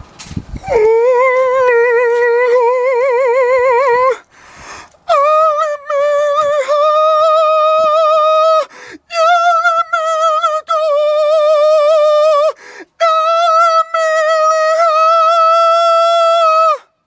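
A voice holding four long, loud, high notes with a fast vibrato, each about three to four seconds. The first is lower than the other three, and each note ends with a short break.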